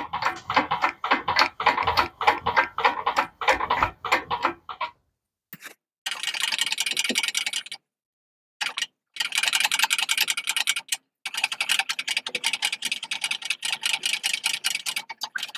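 Rapid clicking and ticking as a portable generator's rotor is spun over on a socket extension, its slip rings scrubbed with an abrasive pad. The clicking is broken by a few short silent gaps.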